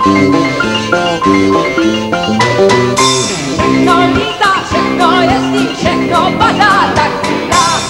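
Live band music: a drum kit with cymbals keeping the beat under a steady tuned melody, with a high wavering lead line coming in about halfway through.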